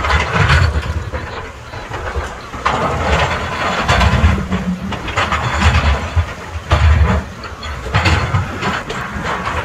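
Wind buffeting the microphone in irregular gusts, over the wash of small waves breaking on the shore.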